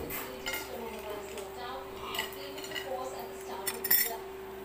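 Cooked crab pulled apart by hand: the shell cracks and clicks in a run of short sharp snaps, the loudest near the end, over a steady hum.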